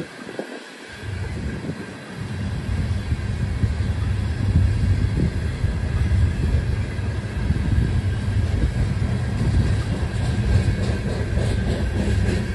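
Covered hopper cars of a long freight train rolling past: a steady rumble of steel wheels on rail, with a faint steady high tone above it. The low rumble is weaker for about the first two seconds, then holds steady.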